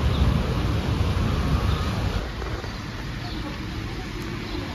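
Low rolling thunder rumble dying away about two seconds in, leaving a quieter steady background with a few faint high chirps.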